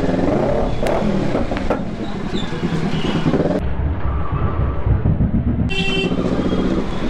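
Kawasaki Z650 parallel-twin engine running at low speed in traffic, with a vehicle horn tooting briefly near the end.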